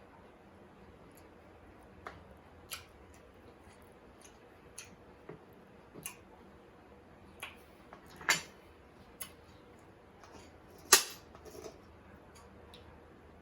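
Close-up eating sounds: scattered short mouth clicks and smacks of someone chewing food, with two louder clicks about eight and eleven seconds in.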